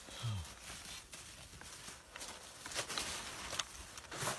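Irregular crunching footsteps in snow. A brief low sound falls in pitch about a quarter second in.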